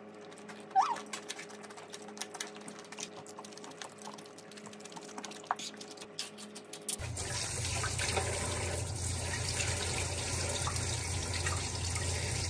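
Quiet eating sounds, small clicks of chewing and chopsticks. About seven seconds in, a kitchen faucet starts running in a steady hiss into a stainless steel sink as a woven dish scrubber is rinsed under the stream.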